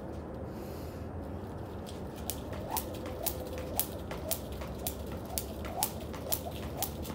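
Jump rope slapping a concrete floor about twice a second as someone skips, starting about two seconds in, each slap with a short faint squeak.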